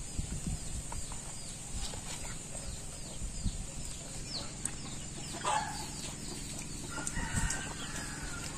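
Domestic chickens clucking in the yard over a run of short, high, falling chirps, two or three a second; a louder call comes about halfway through, and a rooster starts to crow near the end.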